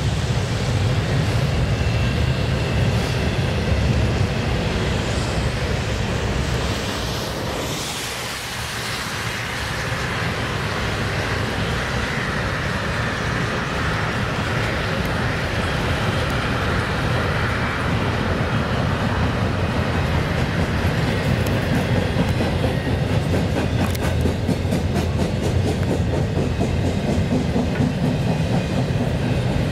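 Double-stack intermodal container freight train rolling steadily past: a continuous rumble of wheels on rail, with rapid clicking of wheels over the rails in the second half.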